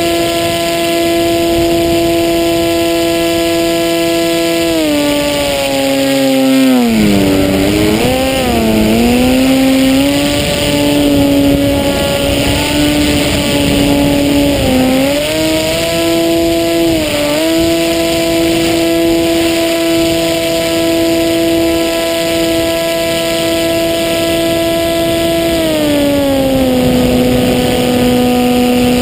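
Hacker A30L brushless outrunner motor and propeller on a Maxi Swift flying wing, heard from on board. Its steady whine drops in pitch about five seconds in as the throttle comes back, wavers for several seconds, climbs back, dips briefly twice, then settles to a lower steady pitch near the end, with wind rush throughout.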